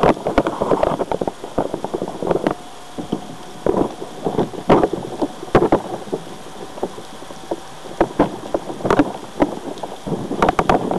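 Irregular knocking and rattling picked up close-up by a small camera mounted on an RC car, over a steady hiss.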